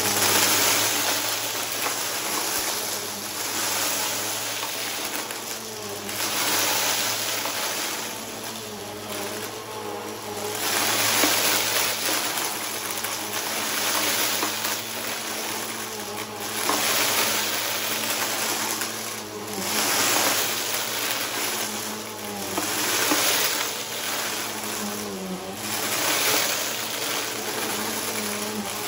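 Bissell upright vacuum cleaner running steadily and sucking up a pile of red, white and blue glittery debris from a rug. Its rushing hiss swells and eases about every three to five seconds as the head is pushed over the pile and drawn back.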